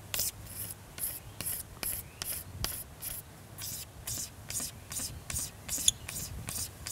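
A razor blade from a utility knife is scraping cured varnish off a wooden boat hull in quick back-and-forth strokes, about three a second, each a short dry rasp. It is working at a stubborn puddle of old varnish that is hard to remove.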